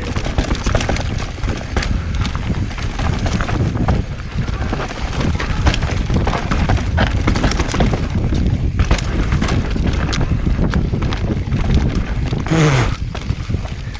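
Mountain bike descending a loose, dry, dusty trail: tyres on dirt and gravel with the bike rattling over bumps in a rapid, uneven string of knocks, and wind rumbling on the microphone.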